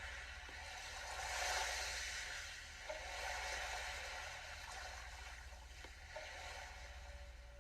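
Ambient music generated live from a heartbeat by a Sound of Soul biofeedback device: soft, airy swells that rise and fall, loudest about a second and a half in and again around three to four seconds, over a steady low hum.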